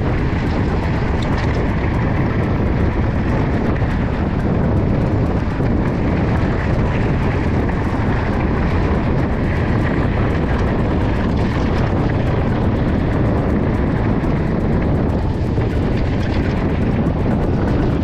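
Steady, loud rush of wind buffeting an action camera's microphone while riding a mountain bike.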